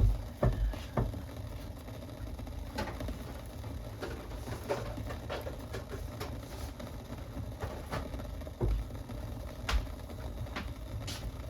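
Pot of pear drink boiling hard, uncovered, on high heat: a steady low rumble with irregular bubbling pops and a few dull knocks.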